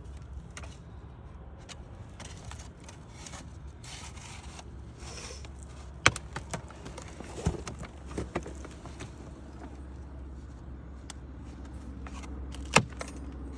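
Two sharp shots from a pneumatic nailer, about seven seconds apart, fastening wood shakes to the roof, with a few softer knocks of the shakes being handled between them over a steady low rumble.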